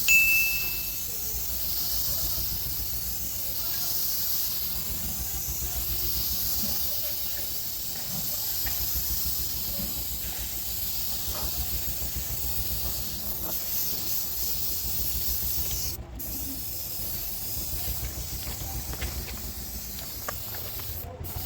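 Primer being sprayed onto a plastic seat-back panel: a steady spray hiss over a low rumble, breaking off briefly about 16 seconds in.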